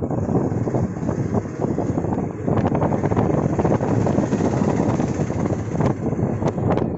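Wind buffeting the microphone over the rumble and rattle of an open rickshaw moving along a road, with a few sharp clicks near the end.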